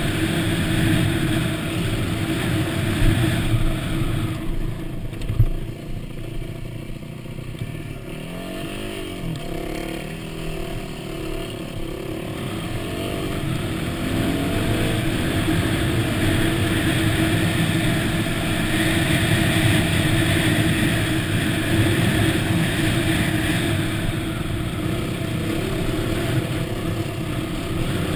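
Yamaha WR250 dirt bike engine running under way. The throttle eases off a few seconds in, then picks up again with the engine note rising. A single sharp knock comes about five seconds in.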